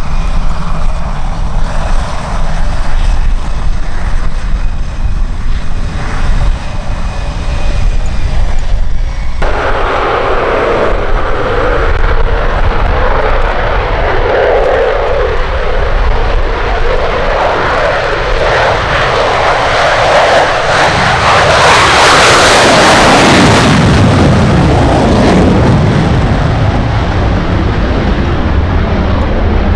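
Boeing EA-18G Growler's twin General Electric F414 turbofans, first running steadily with a high whine, then about a third of the way in going suddenly to full afterburner power for the takeoff roll. The noise grows loudest as the jet passes, about two-thirds in, then drops in pitch as it climbs away with afterburners lit.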